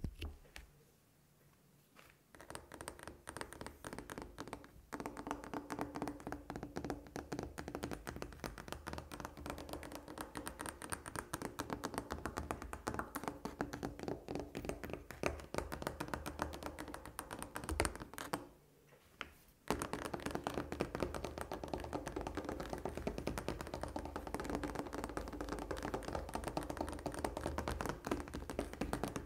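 Fingers tapping quickly and continuously on a wooden tabletop, close to the microphone. The tapping starts about two seconds in and pauses briefly once, about two-thirds of the way through.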